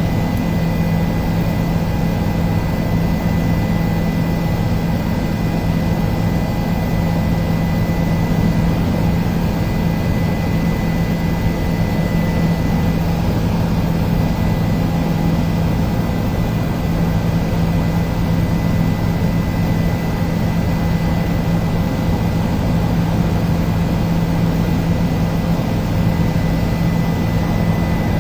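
Helicopter in flight: a steady, loud engine and rotor drone with a thin high whine running over it, unchanging throughout.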